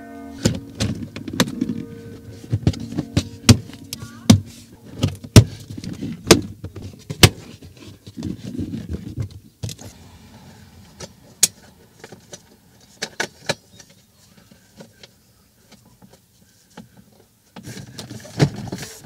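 Plastic interior trim around a car's glovebox being handled and fitted: a quick run of sharp clicks, snaps and knocks, then a quieter stretch with a few faint taps, and a short clatter near the end.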